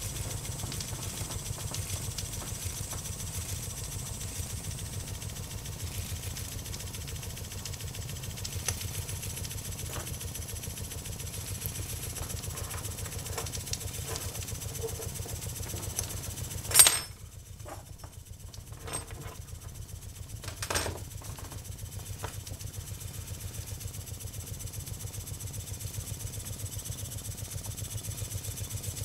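Small single-cylinder model guillotine steam engine running on steam with a fast, even beat. About two-thirds of the way through, a sharp click is the loudest sound, followed by a few seconds where the beat drops away, with a couple of lighter knocks before it returns.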